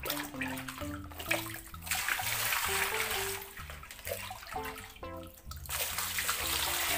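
Water pouring and splashing onto a plastic toy dump truck, rinsing mud and sand out of its bed, in two spells, the second near the end. Light background music with a simple melody plays under it.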